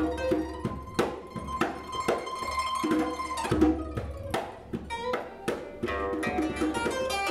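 Pipa, the Chinese plucked lute, playing a line of single plucked notes with sharp attacks that ring on, the notes coming faster near the end.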